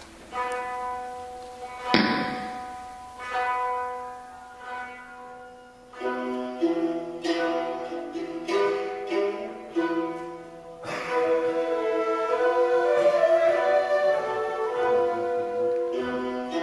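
Japanese-instrument ensemble of koto, shamisen and shakuhachi playing: single plucked notes and chords ring out and die away, with a sharp accent about two seconds in. Quicker plucked passages follow, and about eleven seconds in held shakuhachi tones join over the plucking.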